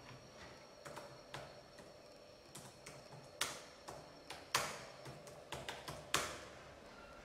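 Typing on a Dell laptop keyboard: irregular plastic key clicks at an uneven pace, with a few louder strikes.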